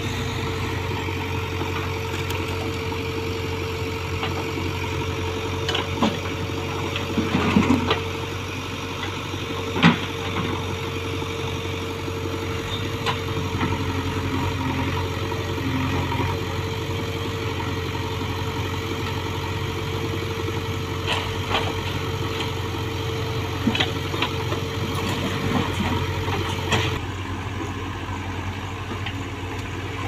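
JCB 3DX backhoe loader's diesel engine running steadily while the backhoe arm digs mud, with a few sharp knocks from the bucket and soil. A steady tone in the machine's sound stops near the end.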